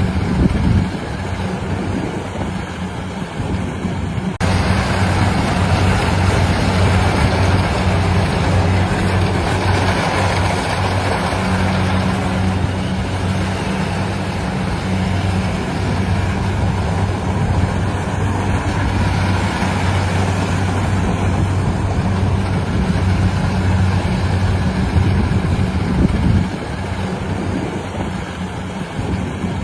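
Engine of a rice-harvesting machine running steadily under load, a deep even hum with mechanical noise over it; it gets louder and harsher about four seconds in.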